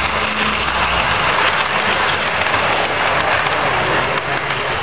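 00 gauge model train running past close by: a steady, rushing rattle of wheels on the rails and the running of the locomotive's motor.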